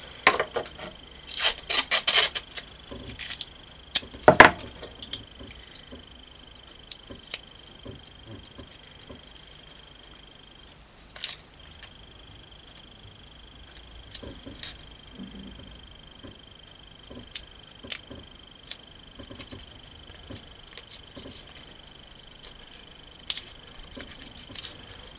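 A nut and a small metal bracket strip being handled and fitted together by hand: light metallic clicks and clinks, busiest in the first few seconds, then scattered ticks. A faint, steady, high-pitched whine runs underneath.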